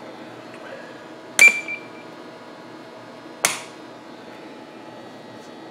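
Two sharp clicks about two seconds apart, the first followed by a brief high ring: a CB radio microphone's push-to-talk key being pressed and released.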